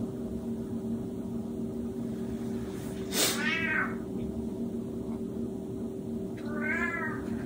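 A cat meowing loudly twice, once about three seconds in and again near the end. Each meow lasts under a second and rises then falls in pitch, over a steady low hum.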